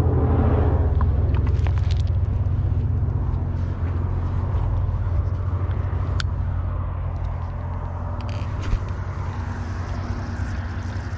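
A steady low engine rumble that eases off a little in the second half, with a few light clicks on top.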